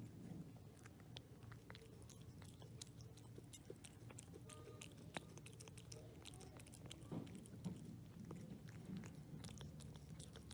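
A cat eating wet pâté cat food from a stainless steel bowl: faint, irregular wet chewing and licking clicks.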